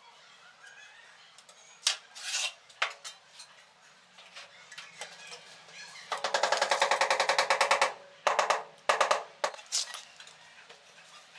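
Tile-laying work: scattered sharp knocks, then a fast, even clattering for about two seconds, then a few more knocks.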